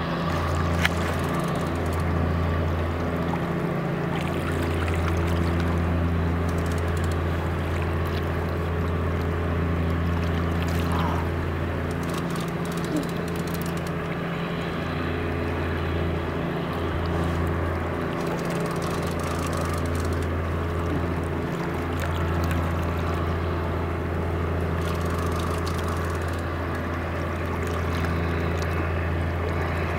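A boat engine running steadily: a low, even hum that dips briefly a few times.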